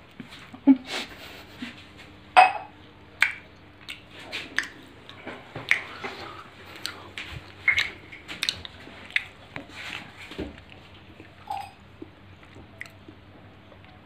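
A person eating close to the microphone: irregular wet smacks and chewing clicks, a few every second, over a faint steady hum.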